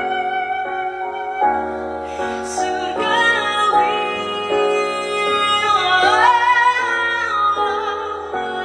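A woman singing over piano accompaniment, holding long notes, with a short noisy sound about two seconds in.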